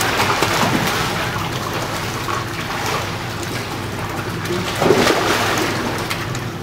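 Water sloshing and splashing in an indoor swimming pool as swimmers climb in, under a steady wash of noise.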